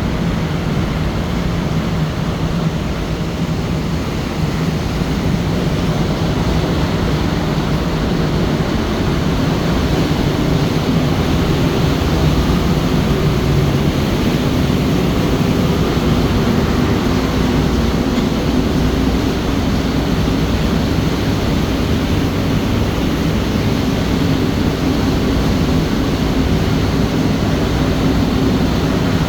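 Motor ship's engine running with a steady low drone over a constant rushing noise.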